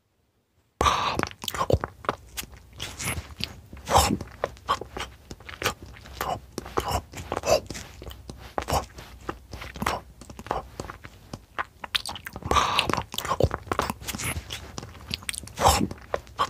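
Close-miked ASMR eating sounds: irregular crunching and chewing bites in quick succession, starting suddenly about a second in.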